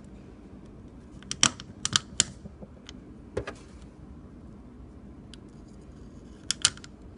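Small clicks and taps of an LED fitting and its wires being handled against a stainless steel drain pan: a quick run of taps about a second and a half in, a single tap a little later, and a pair near the end.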